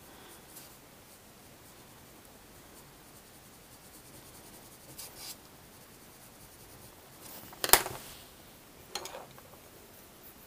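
Coloured pencil scratching faintly on watercolour paper. About three-quarters of the way in, a pencil is set down on the cutting mat with a sharp click, followed a second later by a softer knock.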